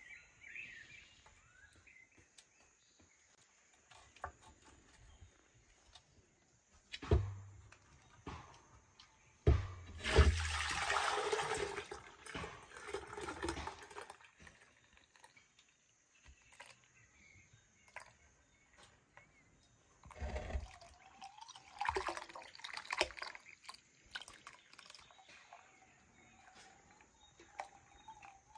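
Buttermilk gurgling and splashing as it pours from a clay butter churn into a clay bowl, with a few knocks as the churn is handled.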